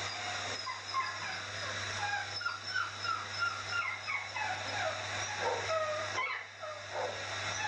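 A dog whimpering and yipping in quick, short falling cries over the steady rush and hum of a pet-grooming hair dryer. The dryer's rush dips briefly about six seconds in.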